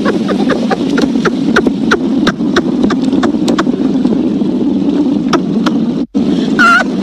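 Motorboat engine running steadily under way, with wind buffeting the microphone and frequent sharp knocks as the hull hits the chop. The sound cuts out completely for a moment about six seconds in.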